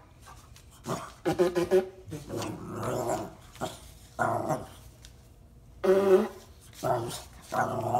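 French bulldog growling and barking in short spells, in between honking blows through a cardboard wrapping-paper tube.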